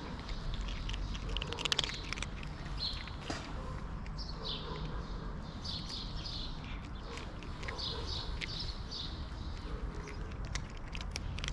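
Cats crunching dry kibble close by, a scatter of sharp little crunches, while small birds chirp in short repeated bursts in the background.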